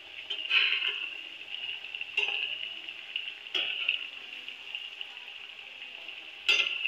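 Kachoris deep-frying in hot peanut oil in a steel kadai: a steady sizzle, with four short knocks of a slotted steel spoon against the pan as they are turned.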